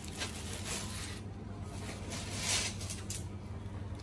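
Plastic bag full of live mud creeper snails rustling in a few soft swishes as it is handled, the loudest about two and a half seconds in, over a steady low hum.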